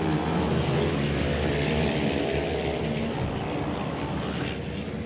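Off-road modified race karts' engines running hard at high revs on a dirt track, a buzzing, layered engine note that eases off slightly near the end.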